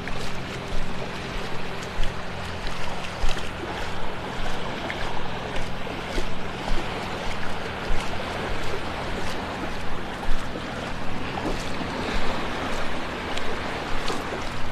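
Feet wading through shallow seawater, a splash with each stride coming a little under twice a second, over a steady wash of waves and wind.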